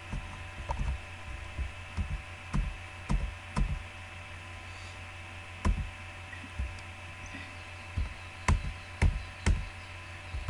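Computer mouse clicking about ten times at irregular intervals, over a steady electrical hum.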